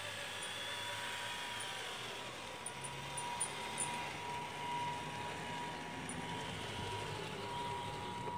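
RC 6x6 rollback truck's motor and drivetrain whining as it drives along, the higher tones drifting up and down in pitch as it changes speed.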